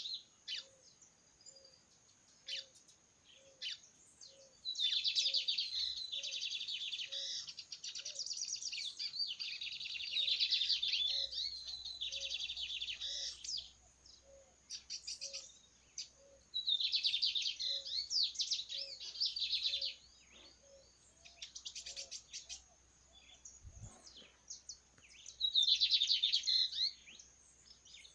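A cigarrinha (small Brazilian seedeater) singing its rapid, machine-gun 'metralha' song in bursts of a few seconds, with short pauses between phrases.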